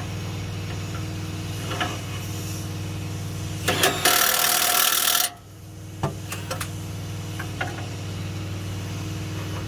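Tools tightening the bolt on a semi truck's new steer shock: a few sharp clicks and knocks, then a loud rushing burst of about a second and a half near the middle that cuts off suddenly, and more clicks after it. A steady low hum runs underneath throughout.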